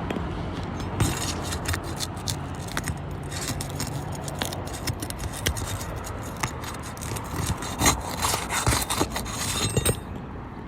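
Asphalt shingle being pried loose and unsealed: a run of scraping and crackling as the sealant strip tears apart and granules break off, with clusters of sharper cracks near the end.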